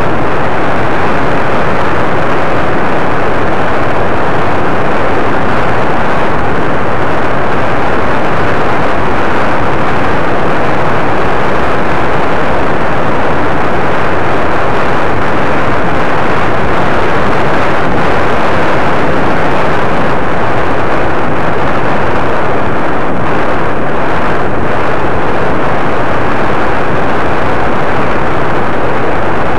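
Loud, steady rushing noise at a camera carried along in paramotor flight: airflow on the microphone mixed with the paramotor's engine, with no distinct engine tone standing out.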